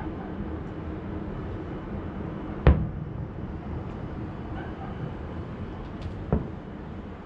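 Aerial fireworks shells bursting in the distance: two sharp booms about three and a half seconds apart, the first the louder, over a steady low hum of background noise.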